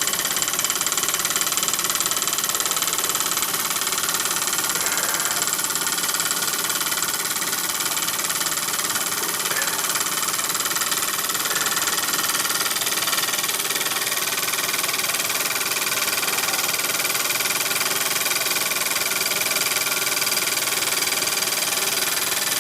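Bowman PW201 model steam engine running fast on compressed air, with a steady, even hiss of air and exhaust.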